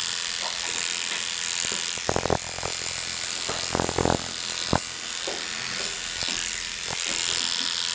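Electric dog-grooming clippers with a number 10 blade, running with a steady high-pitched buzz as they clip a Miniature Schnauzer's head. A few short knocks come about 2 seconds in, around 4 seconds, and just after.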